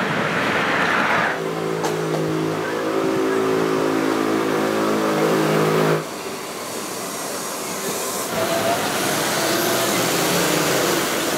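Street traffic sped up to double speed: a vehicle engine idling steadily with a raised pitch, then an abrupt cut about six seconds in to the noisier rumble of a tram and passing traffic.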